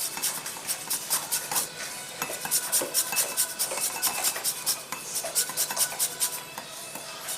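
A lemon being zested on a hand grater: quick, regular rasping strokes, about three or four a second, with light clinks of kitchen utensils.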